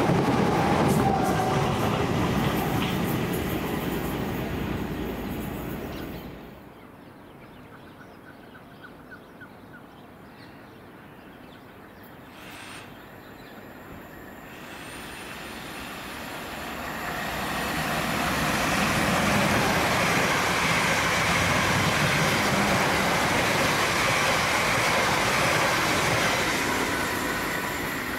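A South Western Railway Class 455 electric unit running past and fading away. Then, after a quieter stretch, a pair of Class 444 Desiro electric units approach and pass through at speed, building to a steady loud noise of wheels on rails, which eases off near the end.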